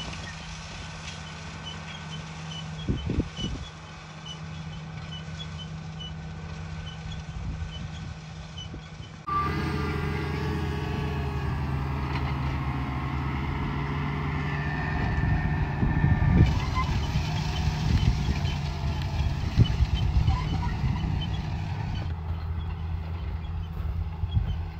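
International Harvester 1486 tractor's turbocharged six-cylinder diesel running steadily under load while pulling a six-row planter across a field. It is joined by faint, regular high ticks in the first part. About a third of the way in, the engine sound abruptly becomes louder and fuller.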